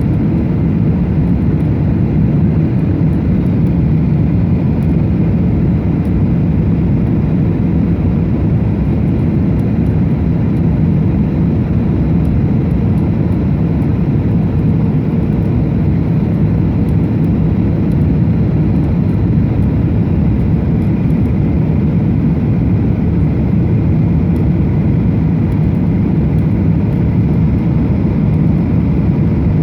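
Steady cabin noise of a Qantas Boeing 737-800 on its landing approach: the CFM56 turbofans and the airflow past the fuselage make an even, deep rumbling noise with no breaks or changes.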